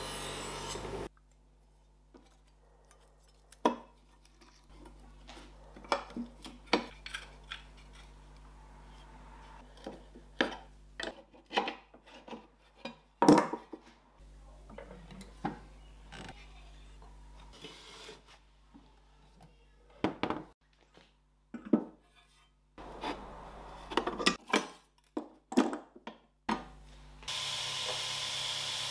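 Metal tools and steel clinking and knocking as they are handled and set down on a wooden workbench: a scattered series of sharp taps and clatters. A steady grinding noise cuts off about a second in, and near the end the belt grinder's motor and belt start up with a steady rushing noise.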